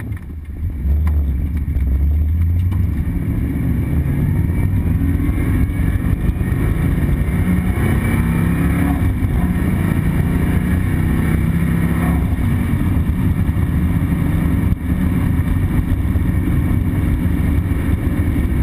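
1976 Ford Mustang II Cobra II's 302 V8, heard from inside the car, pulling away hard about a second in and accelerating. Its pitch climbs in several pulls with short breaks between them as it is shifted up through the four-speed gearbox.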